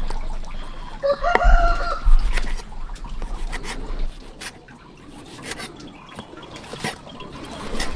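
A rooster crows once, about a second in, over scattered light clicks and knocks.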